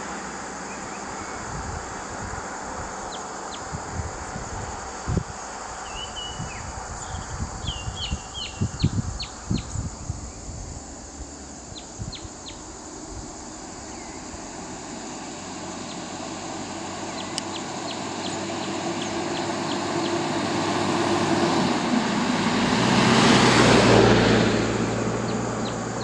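A van approaches on the road, its engine and tyre noise swelling to a peak a couple of seconds before the end, with a steady engine hum. Earlier, birds chirp in short bursts and wind bumps on the microphone.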